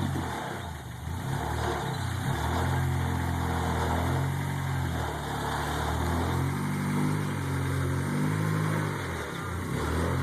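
Suzuki Sidekick's engine under low-speed rock-crawling throttle, its revs rising and falling repeatedly, with brief dips about a second in and near the end.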